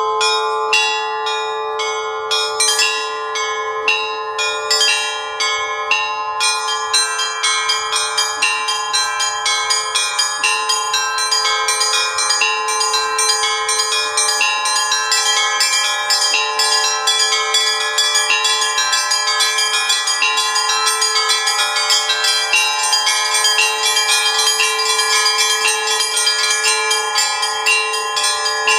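Russian Orthodox church bells rung in the Russian style (zvon). A lower bell's tone hums steadily under repeated strikes of several smaller bells. About six seconds in, the smaller bells settle into a quick, even chime that keeps going.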